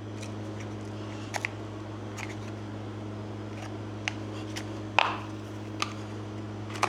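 Light clicks and taps of hands working at the cell caps on top of a 12-volt lead-acid battery while the water level is checked; the sharpest click comes about five seconds in. A steady low electrical hum runs underneath.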